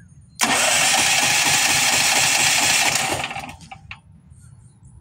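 Electric starter cranking a Firman H07552 portable generator's engine for about three seconds, on natural gas through a conversion kit. The engine does not catch and the cranking stops abruptly: a failed start.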